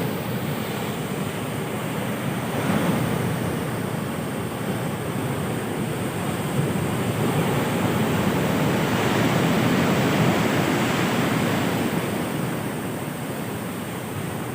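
Heavy ocean surf breaking on a beach: a continuous rushing wash that swells to its loudest around the middle and eases off toward the end.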